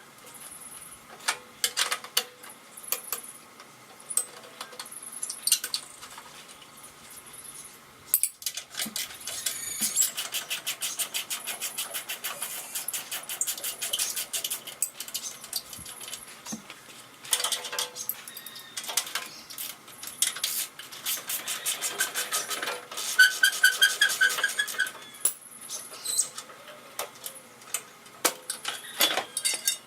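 Hand ratchet wrench clicking in fast runs while 9/16-inch bolts are loosened, with scattered metal clinks; the later run is louder and carries a squeak.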